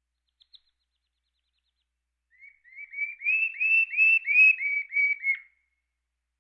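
Domestic canary singing: two faint chips, then a phrase of about ten quick repeated whistled notes, each rising and falling, swelling and then fading over about three seconds.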